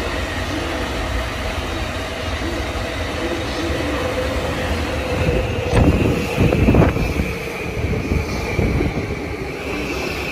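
A Yamanote Line E235-series electric commuter train running in past the platform end. It gives a steady whine over rolling noise, and its wheels clatter loudly over rail joints about six to seven seconds in as the cars pass close by.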